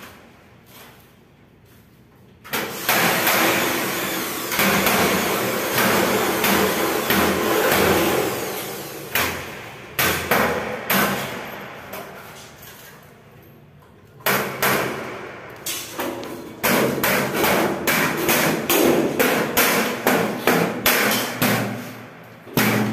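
Electric drill drilling at the partition's aluminium frame: one long run for several seconds, then a series of short repeated bursts on the trigger.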